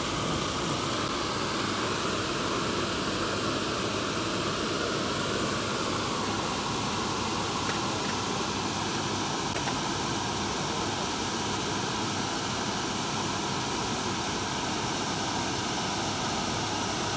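Steady, unchanging rush of water being let through a river dam, with a faint even hum under it.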